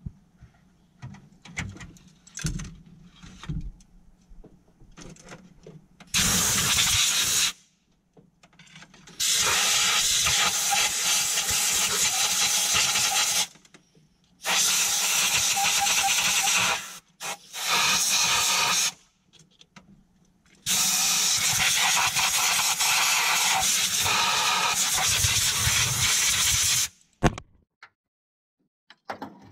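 Pressurised air hissing out in five loud bursts, from about one to six seconds long; the longest comes near the end. Each burst starts and stops abruptly. Faint clicks and knocks come between the bursts.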